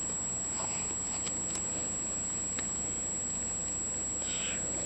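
A pet ferret shifting about in its basket: faint scratches and small clicks, with a short breathy huff near the end.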